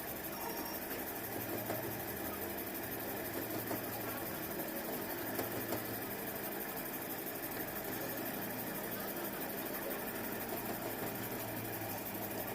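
A steady machine hum with an even hiss over it.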